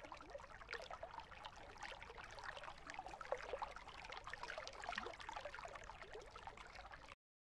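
Faint trickling, gurgling water with many small drips, cutting off abruptly near the end.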